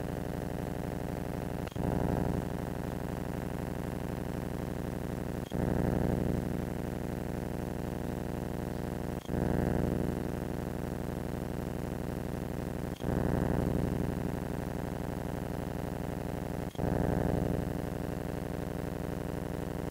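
Steady electronic hum made of many fixed tones, broken about every four seconds (five times) by a short click and a brief louder surge. This is self-noise from night-vision binoculars whose sound recording no longer works; no owl call is recorded.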